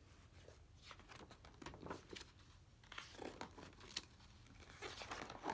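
Faint rustling and flapping of hardcover picture-book pages being turned by hand, with a few light taps.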